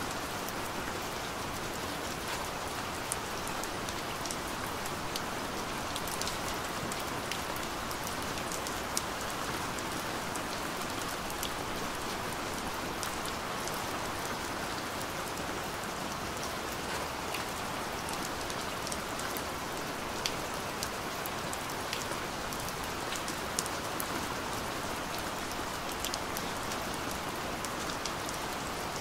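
Steady rain falling: a constant even hiss with scattered sharp drop ticks.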